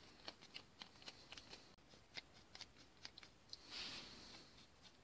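Faint clicks and taps of small steel parts being handled and fitted together, a cutter head sliding into the cutter body of a ball turning attachment, with a brief rustle about four seconds in.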